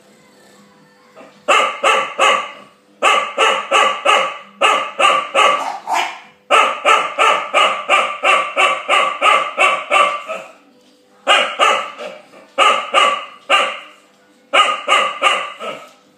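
Eight-month-old chow chow puppy barking at another dog over his bone. The barks come in repeated bursts of three to five, about four a second, with one longer run of a dozen or more in the middle.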